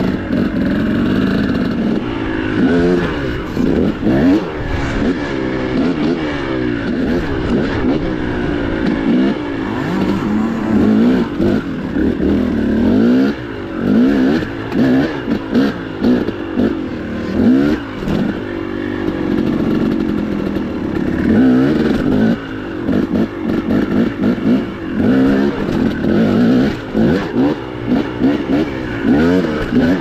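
Dirt bike engine ridden hard, its pitch rising and falling over and over as the throttle is opened and closed.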